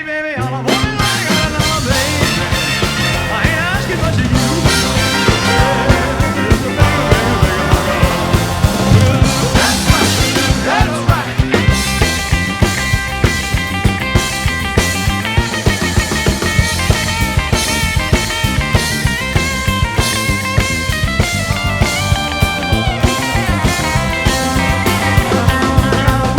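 Rock and roll band playing an instrumental passage, with drums on a steady beat and sustained pitched instrument lines over it.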